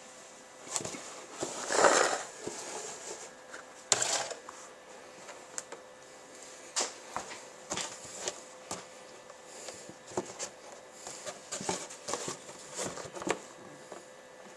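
Cardboard box scraping and tapping on a tile floor while kittens paw and scratch at it: scattered light scratches and taps, with a louder rustling scrape about two seconds in and a sharp knock at about four seconds.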